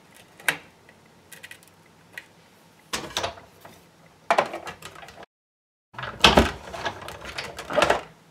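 Big Shot die-cutting machine being hand-cranked, the plates and dies clunking and rattling as they pass through the rollers, after a few light clicks. The sound drops out completely for about half a second midway.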